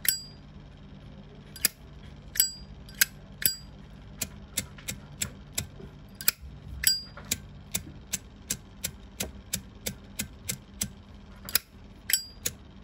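Zippo lighter being worked by hand: a long run of sharp metallic clicks and clacks from its lid and cam, about two a second and uneven, several with a brief bright metallic ring.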